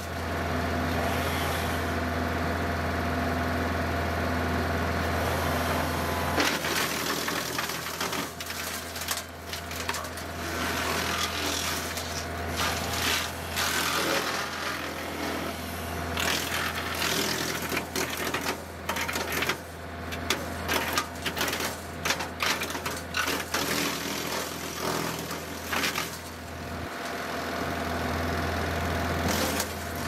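Frontier WC1105 PTO-driven wood chipper, run by a John Deere 2038R compact tractor's diesel engine, chewing up tree limbs fed into it. The machine's hum is steady throughout, with irregular sharp cracks and crunches of wood being cut from about six seconds in.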